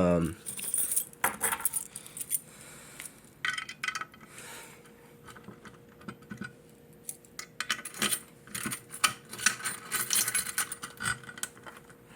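Irregular metallic clicks, clinks and rattles from a fire alarm pull station being handled, bunched in clusters around four seconds in and again from about eight to ten seconds.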